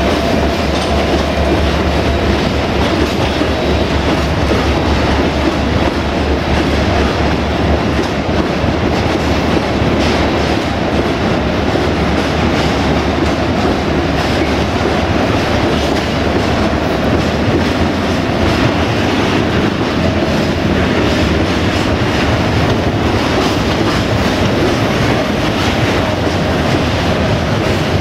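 Freight train of tank wagons rolling past steadily, the wheels clattering over the rail joints. A low hum underneath fades after the first several seconds.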